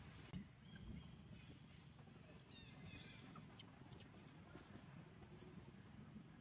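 Quiet outdoor ambience with faint chirps from small birds: a short falling run of high notes a little before halfway, then a scatter of brief, very high chirps in quick succession over the next couple of seconds.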